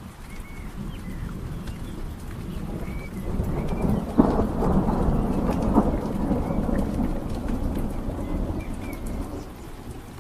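Steady rain-like hiss with a low rumble of distant thunder that swells about three seconds in and dies away over the next several seconds; faint bird chirps come and go.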